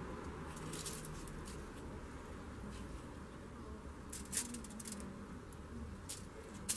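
Quiet handling noise from gingerbread pieces being held and pressed together by hand: a few light rustles and taps, the clearest about four seconds in and near the end, over a faint steady background hiss.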